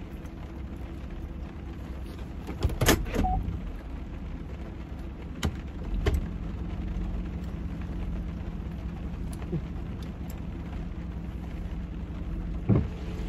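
Steady low hum of a car with the cabin closed, and rain falling on the car. A few short knocks and bumps come about three seconds in, around six seconds, and near the end.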